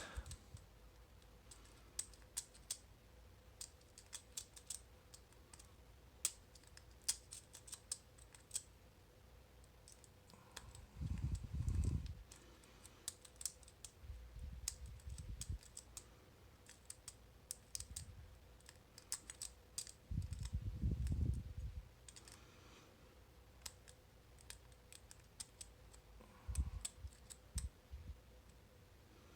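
Lock picking on an old Sargent brass pin tumbler padlock: a homemade hybrid pick and tension wrench make faint, irregular metal clicks and scrapes in the keyway as the pins are worked. There are two stretches of low rumble, about a third and about two-thirds of the way in.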